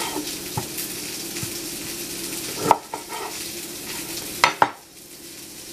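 Cut limes and a kitchen knife knocking on a wooden cutting board while the limes are handled: one sharp knock about halfway, then two quick knocks close together. Under them runs a steady kitchen hiss with a low hum, which quietens after the two knocks.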